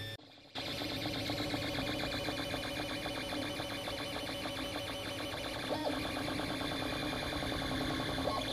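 FDM 3D printer's stepper motors running through rapid short moves as the print head lays down a black part: a busy, stuttering mechanical whir with pitched motor tones. The sound cuts out for about half a second just after the start.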